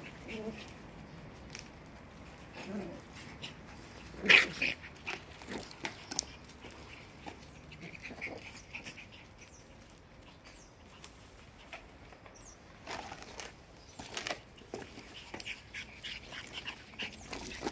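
Shiba Inu puppies play-fighting, giving a few short yaps and yelps, the loudest about four seconds in and more around thirteen to fourteen seconds, with scuffling between.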